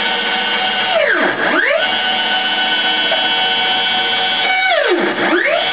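Stepper motors of a home-built CNC router driving the carriage along its axes: a steady whine of several tones at constant speed. Twice the whole whine falls in pitch and climbs back up as the axis slows to a stop and speeds up again.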